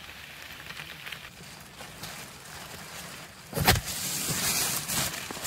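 Steady rain hissing down on forest foliage and plastic rain ponchos. About three and a half seconds in, a loud close rustling and rumbling on the microphone takes over.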